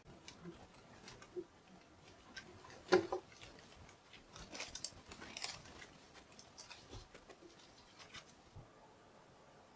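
Long knife sawing through a chocolate sponge cake held in a plastic leveler guide: soft scraping strokes with scattered clicks of the blade and guide. The loudest knock comes about three seconds in, with a busier run of strokes around the middle.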